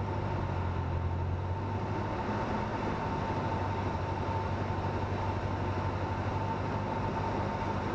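Cessna 172N's four-cylinder engine and propeller droning steadily in flight, heard inside the cabin, with a faint steady whine above the drone.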